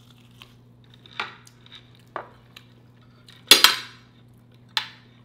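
Cutlery clinking against a plate several times in short separate clinks, the loudest a quick double clink about three and a half seconds in.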